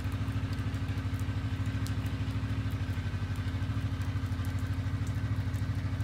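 Snowmobile engine idling steadily, a low, even pulse.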